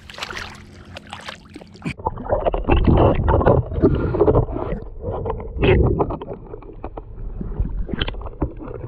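Muffled underwater sloshing and rumbling of lake water around a submerged camera. About two seconds in the sound turns dull and loud as the microphone goes under, with several surges of water noise.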